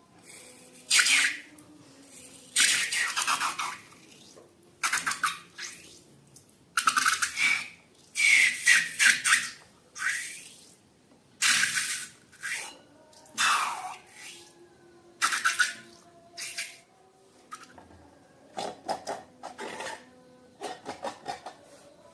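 Slime and rubber balloons being handled and squeezed: a string of short, irregular wet sounds, some carrying a squeak that falls in pitch.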